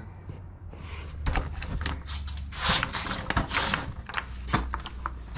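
Footsteps and rustling from a hand-held camera as someone walks along a garage door, with a few scattered light knocks and clicks.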